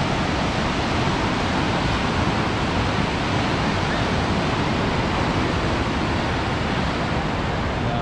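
Ocean surf breaking and washing onto a sand beach: a steady rushing noise with no breaks.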